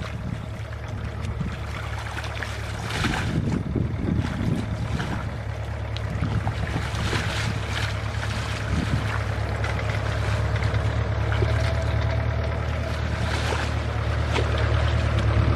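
A small engine running steadily at a low pitch, getting louder near the end, with brief bursts of noise over it.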